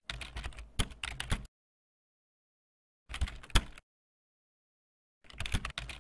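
Typing sound effect: three bursts of rapid key clicks with dead silence between them, matching text being typed out on screen.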